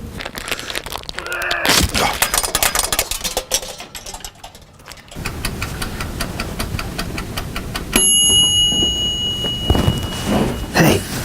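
Rapid crinkling and clattering, then a steady high electronic beep that starts about eight seconds in and holds for nearly three seconds.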